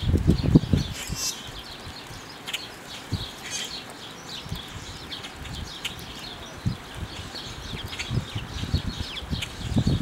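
Songbirds chirping outdoors: many short high chips, with two longer squeaky calls at about one second and three and a half seconds in. A low rumble runs through the first second.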